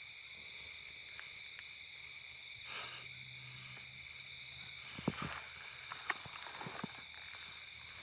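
Steady, high-pitched chorus of night insects, with a few short rustles and clicks from vegetation being handled about five to seven seconds in.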